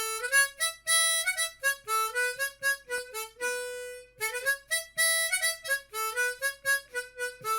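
Opening tune: a single instrument playing a fast melody of short notes, with one long held note about three seconds in.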